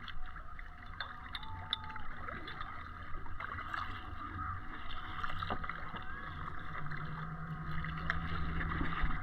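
Kayak moving across open water: steady water noise with wind rumbling on the microphone. A low steady hum joins about halfway through.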